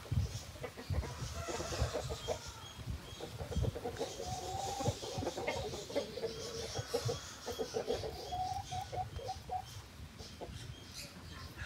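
Aseel chickens clucking in runs of short, quick notes, with scattered low thuds underneath.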